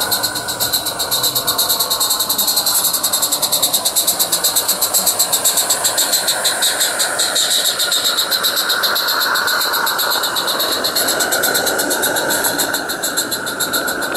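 Roundhouse live-steam garden-railway locomotive chuffing with a rapid, even exhaust beat as it runs past close by hauling its coaches, loudest as it draws near.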